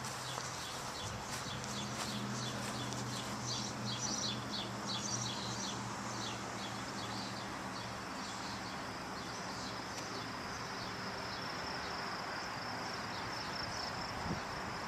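Outdoor ambience of birds chirping in quick repeated notes, giving way about halfway through to a steady high insect buzz. A constant hiss of distant traffic runs underneath, with a low hum in the first half.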